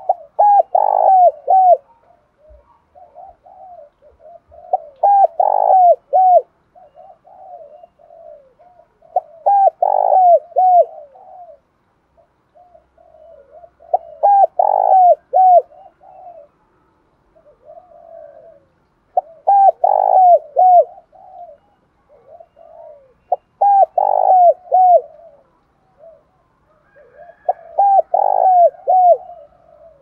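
Spotted dove cooing: seven loud phrases of several falling coos, about one every four to five seconds, with softer coos between them.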